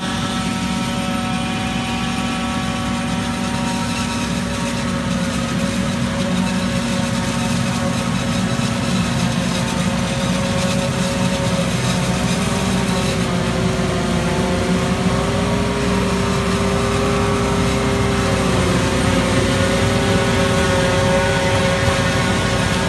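Forage harvester chopping standing corn for silage, with a tractor pulling the silage wagon alongside: a steady engine and machinery drone carrying a held whine, growing slightly louder toward the end as the machines come nearer.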